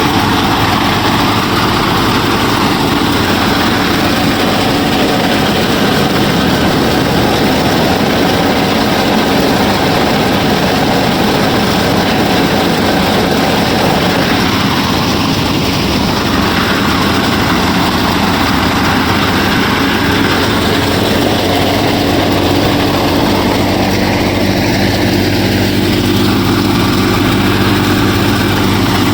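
Motor of a DIY miniature combine harvester running steadily as it works, a continuous mechanical drone with a slight shift in pitch about two-thirds of the way through.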